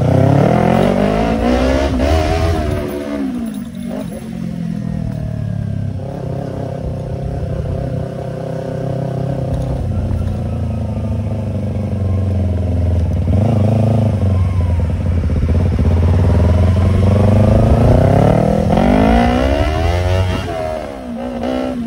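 Yamaha YZF-R25 parallel-twin engine running through an aftermarket Tiger exhaust while being ridden. The revs rise and fall as it accelerates and shifts, climbing for several seconds near the end and then dropping off sharply.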